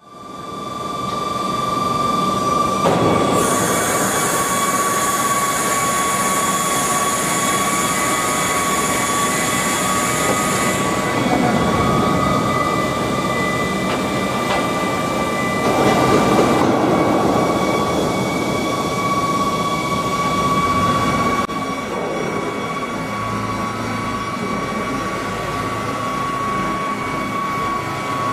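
Boeing 777-300 landing gear being cycled in a gear swing test: a steady high whine of the hydraulic system, with rushing noise that swells and fades as the gear moves. A bright hiss runs from about three seconds in to about eleven, and the sound drops a little about two-thirds of the way through.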